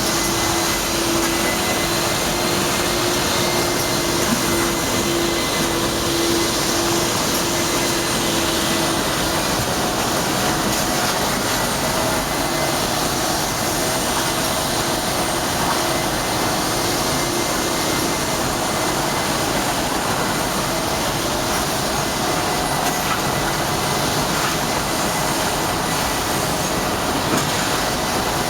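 Soteco GREEN 633 wet-and-dry vacuum cleaner running steadily: an even rush of air with a steady high whine from its motor.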